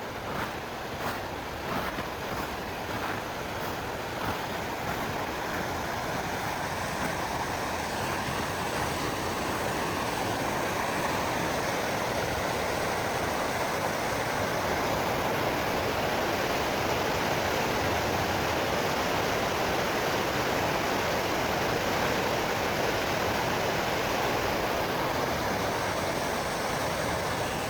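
Rushing river water, a steady rush that grows a little louder over the first several seconds and then holds, with a few light clicks near the start.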